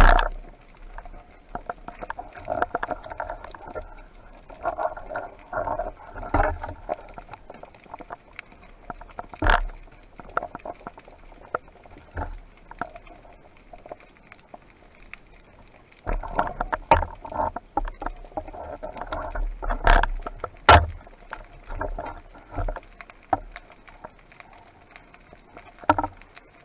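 Irregular crackling clicks and several sharp knocks in the water, picked up through a camera's waterproof housing during a spearfishing dive. There are two busy stretches of clicking, one in the first few seconds and one from about 16 to 23 seconds, with single louder knocks in between.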